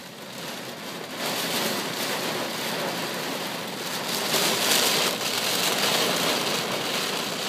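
Heavy rain pelting a car's roof and windows, heard from inside the car. It grows heavier about a second in, then keeps up a steady downpour.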